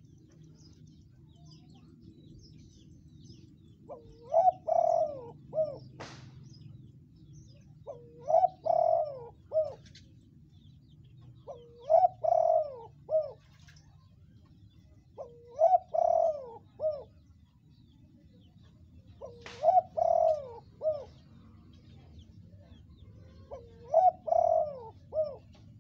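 Spotted dove cooing: six repeated song phrases, each a short run of gliding coos, coming about every four seconds.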